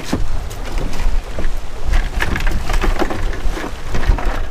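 Plastic bags crinkling and rustling as they are handled, in quick crackly bursts that thicken about two seconds in and again near the end, over steady wind buffeting the microphone.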